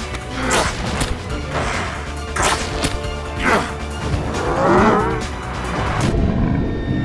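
Animated action score with cartoon sound effects: a string of whooshes and smashing hits about once a second, and a drawn-out, wavering creature growl about four to five seconds in.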